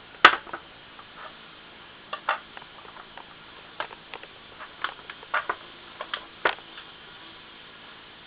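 Irregular light clicks and taps of small parts and tools being handled on a hard disk drive during disassembly, the sharpest about a quarter second in, with scattered taps for several seconds after.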